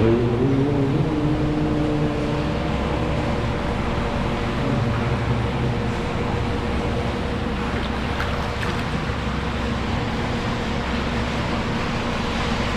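Steady rush of creek water echoing through a tunnel, with a low pitched hum laid over it for the first couple of seconds.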